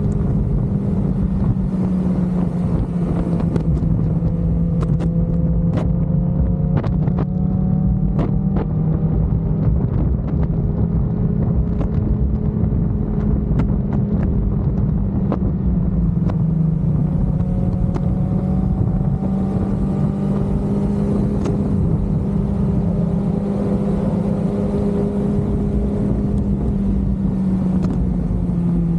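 Suzuki GSX-R600's inline-four engine running at a steady cruise under way, its note drifting gently up and down, with wind rushing over the microphone. Scattered sharp clicks come mostly in the first half.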